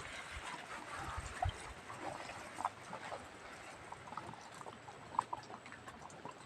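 Short, faint animal squeaks, scattered every second or so, over a steady background hiss.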